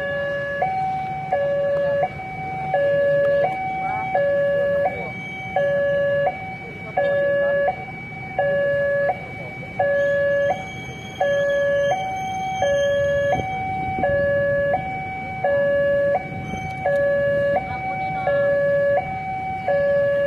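Railway warning alarm sounding a two-tone signal, a higher and a lower tone alternating about every 0.7 s without a break. It is the alert that a train is approaching.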